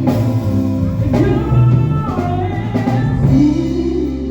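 A live band playing a slow, bluesy song in a gap between sung lines: a guitar fill with bending notes over the drum kit.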